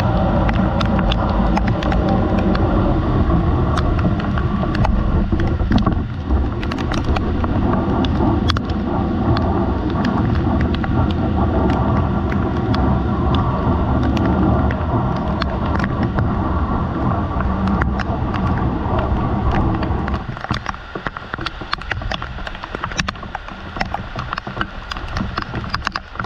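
Rain falling on a corrugated metal roof, a steady wash of noise dotted with sharp ticks of drops striking close by. About twenty seconds in it becomes noticeably quieter.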